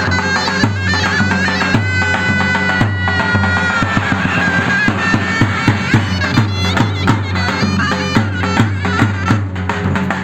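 Davul and zurna playing traditional wrestling music: a shrill double-reed melody with long held notes over steady bass-drum beats.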